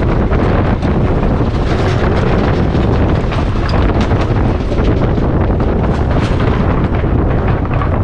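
Motorcycle running as it is ridden, under loud, steady wind rumble and crackle on the microphone.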